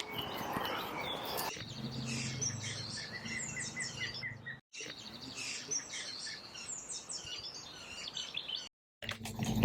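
Small birds singing and chirping, with a low steady hum underneath. The sound cuts out completely twice for a moment.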